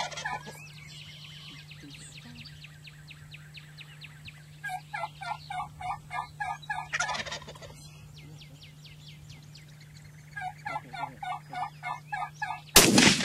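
Wild Rio Grande turkeys calling in two runs of quick repeated notes, about four a second, then a single loud gunshot near the end: the shot at the turkey.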